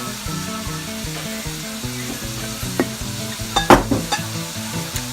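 Chicken, bell pepper and onions frying in a pan with a steady sizzle, and a few sharp knocks of a utensil against the pan as the food is stirred, the loudest of them near the end. A soft background melody plays underneath.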